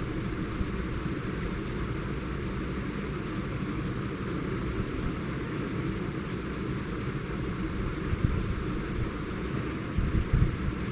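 Steady rumbling background noise with no clear tone or rhythm, with a few low bumps near the end.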